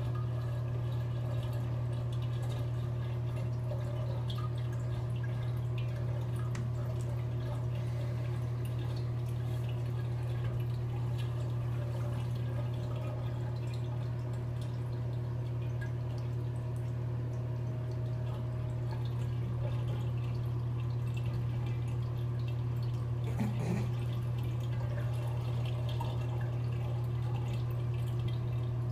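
Steady low hum with faint drips of water in a bathtub.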